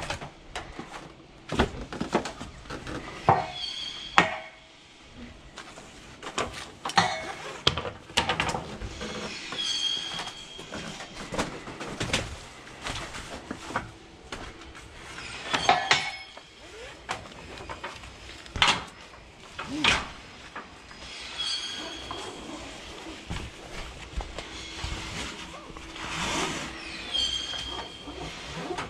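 Ratchet straps being handled on a curtainside trailer: metal hooks and buckles clinking and knocking against the side rail, webbing rustling, with short high squeaks now and then.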